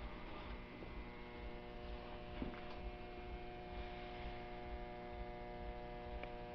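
Faint steady electrical hum made of several held tones, with one faint tick about two and a half seconds in.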